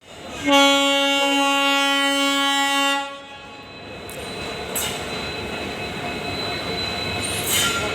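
Locomotive horn sounding one long blast of about two and a half seconds. The train's rumble follows, growing louder, with a thin steady high-pitched whine over it.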